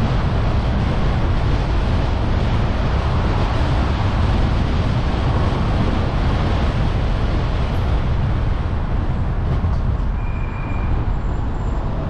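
Steady road and wind rumble from a car being driven, heaviest in the low end. It eases slightly near the end as the car slows for a roundabout.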